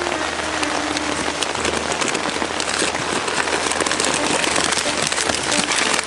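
Heavy rain drumming on the tent fabric overhead: a dense, steady patter of many fine drops.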